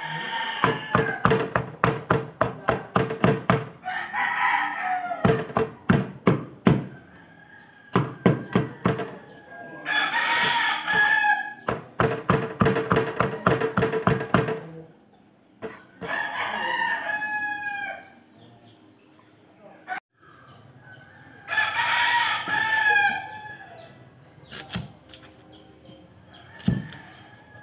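Cleaver chopping garlic on a cutting board in quick runs of strokes, about four a second, with pauses between the runs. A rooster crows about five times.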